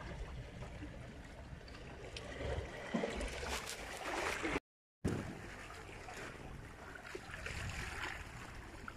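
Sea water washing and trickling among shoreline boulders, with a few faint handling clicks; the sound drops out completely for a moment a little past halfway.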